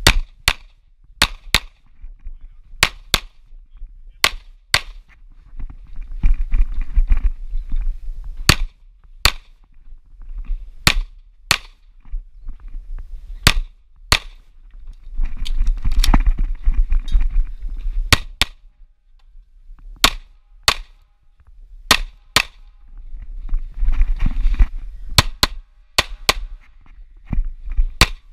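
Pistol fired rapidly during a practical shooting stage, mostly in quick pairs of shots (double taps) with short gaps between groups. Noisy stretches come between some groups of shots.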